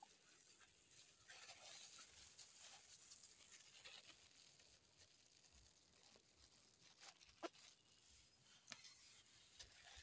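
Near silence: faint outdoor hiss with a few soft clicks in the second half.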